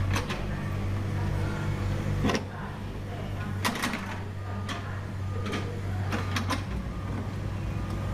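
Hydraulic excavator running steadily with a low engine hum, with several sharp metallic knocks and clanks from the working machine.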